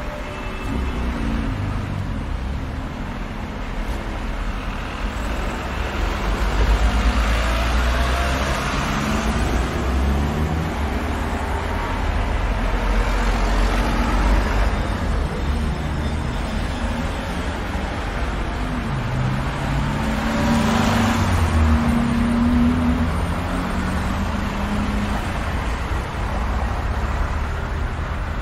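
Steady city street traffic: road noise and low engine hum from cars moving through an intersection, swelling as vehicles pass about a quarter of the way in, halfway, and three quarters of the way through.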